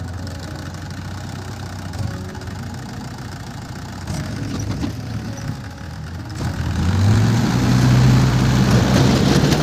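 Tractor engine running steadily at idle, then revving up about seven seconds in and running louder and higher in pitch.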